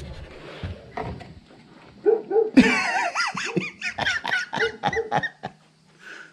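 A dog vocalising in a run of wavering, pitch-bending howls and whines. The calls start about two seconds in and stop about a second before the end.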